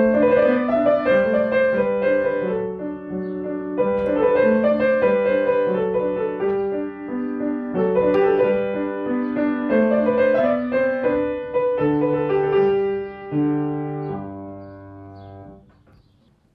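Background piano music, a gentle melody over low chords, dying away to near silence near the end.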